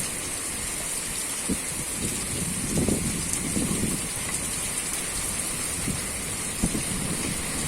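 Rain falling steadily, with a few dull low thumps, the clearest about three seconds in.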